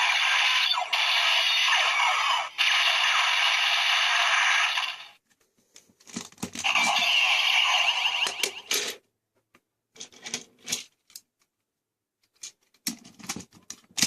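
DX Break Gunner toy playing electronic sound effects through its small speaker: a harsh, crackling noise with nothing in the bass for about five seconds, then a second burst a second later. Near the end come several short clicks and snaps, with silence between them.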